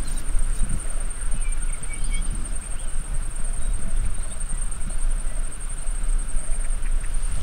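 Open-country field ambience: a steady, high-pitched insect trill over a low, uneven rumble of wind on the microphone, with a few faint bird chirps.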